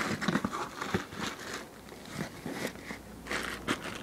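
Cardboard box being opened and the packing inside handled: irregular rustling and crinkling crackles.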